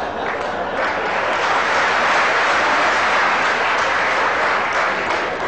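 Live theatre audience applauding, swelling about a second in and dying down near the end.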